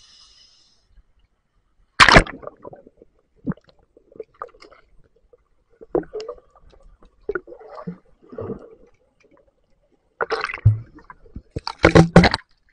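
Sea water splashing and gurgling around a camera as it goes under the surface, with muffled knocks and bubbling underwater. There is one sharp splash about two seconds in and a run of loud splashes near the end.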